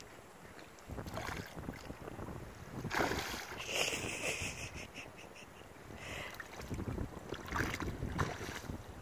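Several bursts of water splashing as a hooked carp thrashes at the surface and a wading angler moves through shallow river water.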